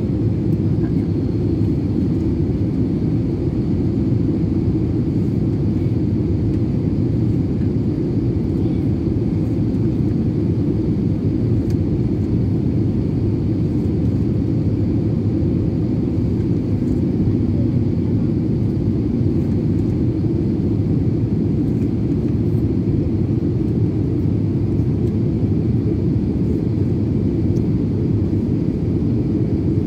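Steady low cabin noise of an Airbus A320neo in flight, the rumble of its engines and the airflow heard from a window seat over the wing, even and unchanging throughout.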